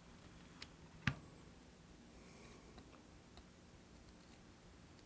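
Near silence with a faint low hum and a few small clicks of tools handled during desoldering, the sharpest tick about a second in.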